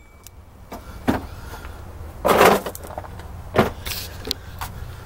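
Handling noise from moving around and working with metal parts: a few scattered knocks and a longer scuff about two seconds in, over a low steady hum.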